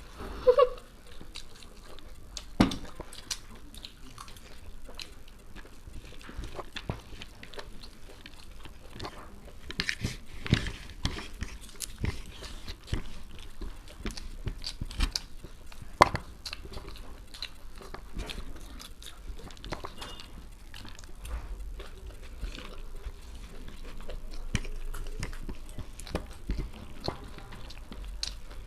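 People chewing and crunching food close to the microphone, with scattered sharp crunches.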